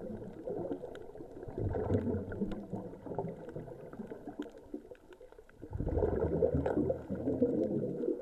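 Scuba regulator exhaust bubbles gurgling underwater, coming in bursts a few seconds apart as a diver breathes out.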